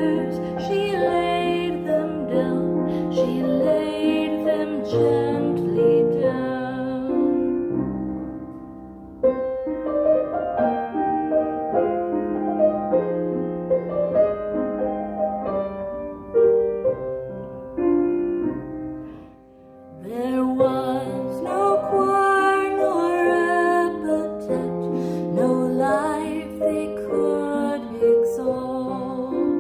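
Slow song on solo piano with a woman singing; the voice drops out for a piano-only passage in the middle, then comes back.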